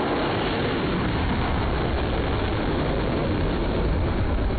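A ship-launched missile's rocket motor burning as the missile climbs away after launch, giving a steady, loud rushing noise heaviest in the low end.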